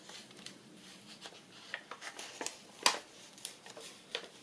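Paper and card being handled: light rustling and a scatter of small taps and clicks as small paper ephemera pieces are sorted, with one sharper tap about three seconds in.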